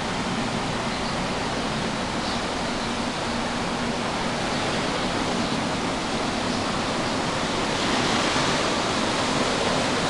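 Steady rushing wash of ocean surf breaking on the shore, with a faint low hum underneath, getting a little louder near the end.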